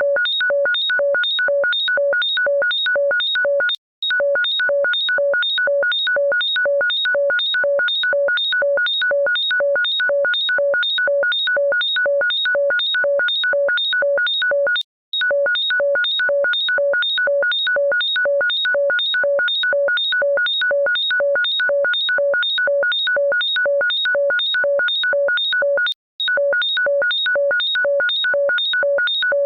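Harsh electronic ringtone: a fast, unbroken run of identical short beeps, each a clash of several pitches, about two to three a second. It cuts out briefly about every eleven seconds and starts again as the tone loops.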